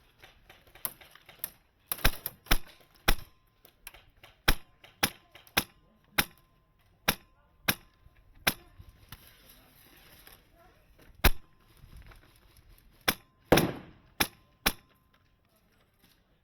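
Airsoft gun firing single shots, sharp cracks at an uneven pace of roughly one every half second to a second, with a few short pauses.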